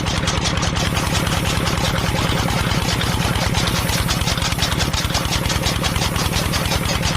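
Small engine of a DIY mini tractor running steadily at idle, with an even chugging beat of about ten pulses a second.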